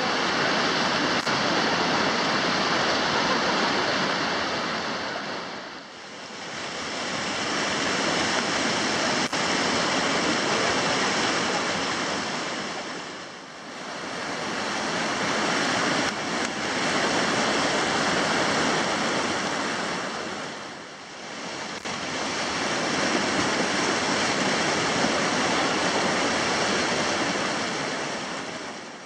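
Whitewater rapids rushing: a loud, steady noise of broken, churning river water that dips briefly three times.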